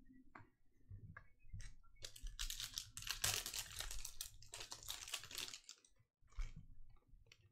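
A foil trading-card pack wrapper being torn open and crinkled for about three seconds, with light clicks of cards being handled before and after.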